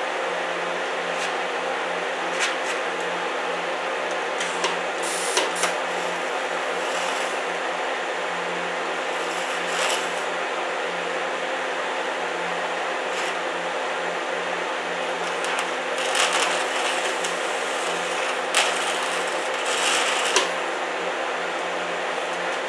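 Electric arc welder welding a greasy, contaminated steel pulley: a steady sizzling hiss over a welder hum, with scattered sharp pops where the grease in the metal burns.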